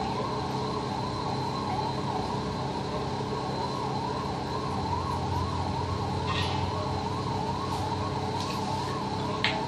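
A continuous warbling, siren-like tone that rises and falls about twice a second, over a steady low hum. A spoon clinks against the steel pan twice, about six and nine and a half seconds in.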